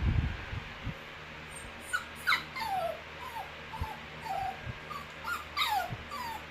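Bichon Frise dog whining: a series of high, falling whimpers, the two longest about two and a half and six seconds in, with shorter whimpers between. A low thump right at the start.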